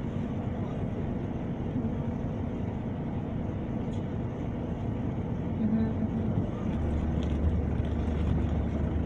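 Double-decker bus heard from inside, a steady low rumble while it waits at traffic lights; about seven seconds in, a deeper hum rises as the bus pulls away.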